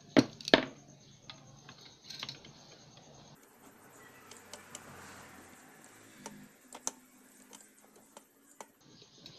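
Light clicks and taps of a screwdriver and fingers working on a CRT TV's power-supply board, freeing the suspected faulty regulator transistor from the board. Two sharper clicks come within the first second, then only sparse faint ticks over a faint low hum.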